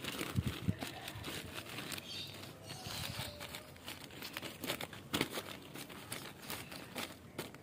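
Crinkling, rustling handling noise with many small sharp crackles.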